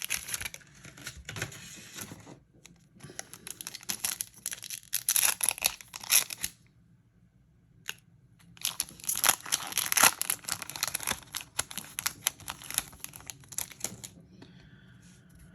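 A Yu-Gi-Oh foil booster pack being torn open and its wrapper crinkled, in spells of dense crackling with a pause of about two seconds in the middle.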